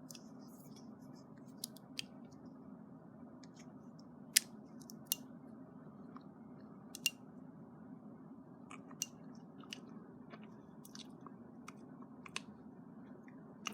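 Scattered sharp clicks and taps from an automatic knife being handled, the loudest about four seconds in, over a steady low hum.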